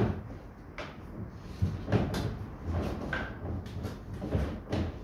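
Plastic body panels of a Gibbs Quadski XL knocking and scraping as the middle section is flexed and pulled out by hand: a string of irregular knocks and thuds.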